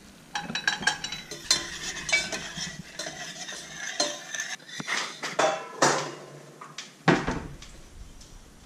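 Metal spoon clinking and scraping against a stainless steel saucepan while stirring, a run of irregular clinks and scrapes with a louder clank about seven seconds in.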